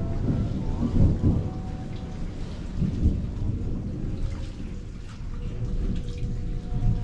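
Rain falling, under a loud, uneven low rumble that surges about a second in and again near the end.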